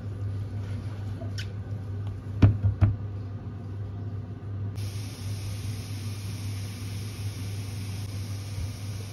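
Silicone spatula stirring mushrooms and Quorn pieces in a non-stick frying pan, with three sharp knocks against the pan about two and a half seconds in. From about halfway there is a steady hiss over a low steady hum.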